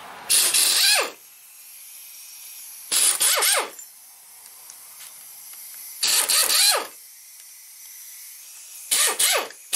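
Power ratchet running in four short bursts about three seconds apart, loosening the 10 mm housing bolts of an automotive AC compressor one at a time.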